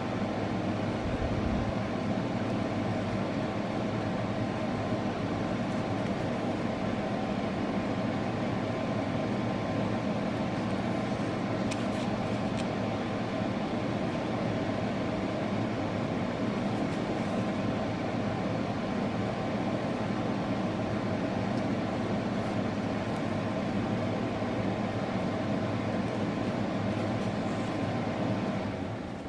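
Steady machine hum holding a few fixed tones, dropping off sharply near the end.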